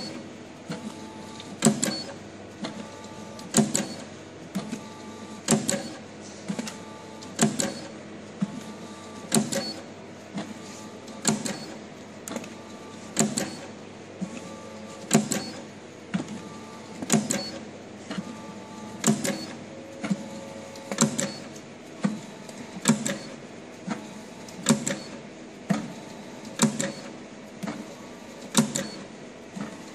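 SAVEMA feeder and conveyor belt with an SVM 32I thermal transfer overprinter printing on cartons. A sharp clack repeats evenly about every two seconds, each followed by a short motor whine, over a steady machine hum.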